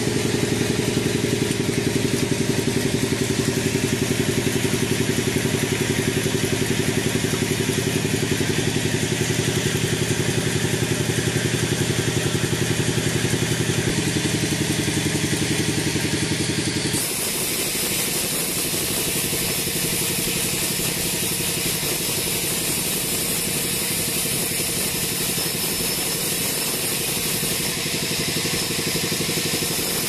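Band sawmill running as it rips a teak log, a steady motor drone mixed with the hiss of the blade. About halfway through the sound switches abruptly to a brighter, steadier cutting hiss with much less drone.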